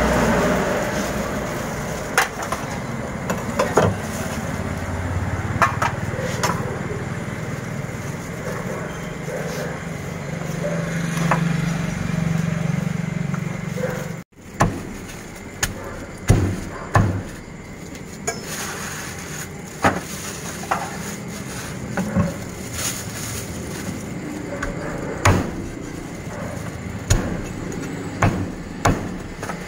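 Cleaver chopping roast duck on a thick wooden chopping block: single sharp chops at irregular intervals, a few seconds apart, over a steady background hum.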